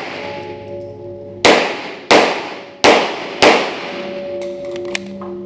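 Four 9mm pistol shots from a Glock 34, about two-thirds of a second apart, each with a sharp echo off the walls of an indoor range. They are followed by a few light clicks and a faint steady ringing tone.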